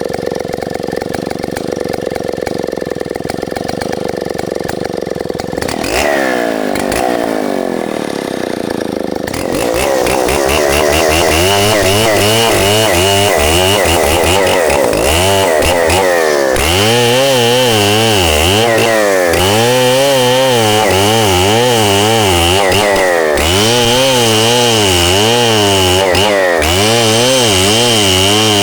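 Stihl 070 two-stroke chainsaw running steadily, then from about ten seconds in working louder with its engine pitch swinging up and down over and over as it cuts red meranti wood.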